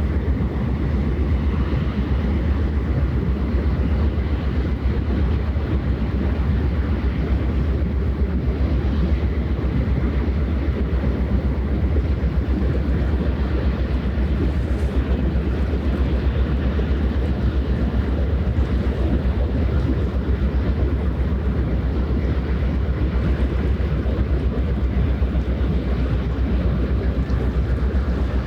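Steady low drone of a passing vessel's diesel engine, with a rough noise of water and air over it and no change in level.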